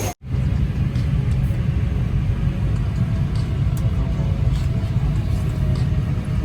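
Steady low rumble of an airliner cabin's air conditioning and ambient noise, with a few light clicks. It cuts in after a brief dropout right at the start.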